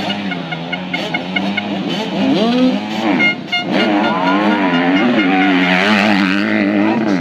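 Several dirt-bike engines revving together at a race start, their pitches rising and falling over one another. They grow louder about three seconds in as the bikes pull away.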